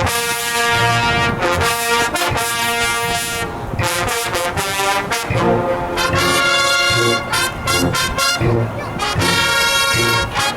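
High school marching band brass section playing loud held chords that change every second or two, with short breaks between phrases and low regular beats underneath.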